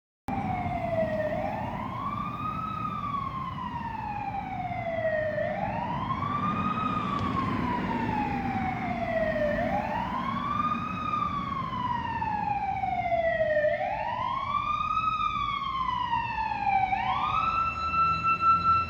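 Fire engine siren wailing, rising quickly and falling slowly in pitch about every four seconds, four times over, then rising near the end to a steady held tone, with a low rumble underneath.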